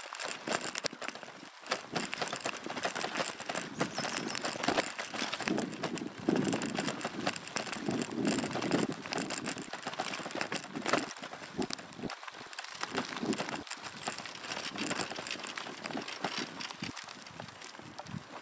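Bicycle jolting along a rough dirt track, with a constant irregular rattle and knocking from the bike and its bouncing camera boom.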